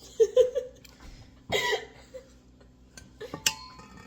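A short cough-like vocal burst, then about a second later a louder breathy burst, and near the end a sharp clink with a brief ring, like a utensil striking a mixing bowl.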